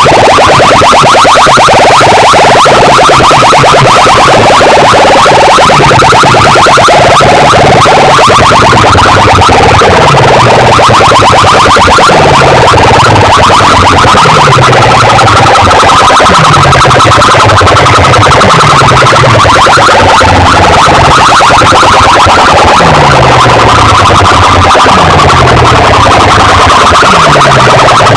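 Electronic DJ music played very loud through a large sound system, distorted, with a fast pulsing beat and a falling bass sweep that repeats about once a second.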